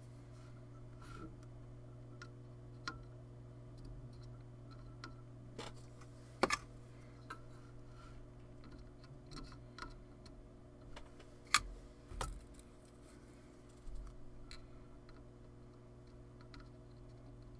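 Soldering rework on a UPS circuit board: scattered light clicks and taps as the soldering iron and tools touch the board and capacitors, two sharper clicks near the middle, over a steady low hum.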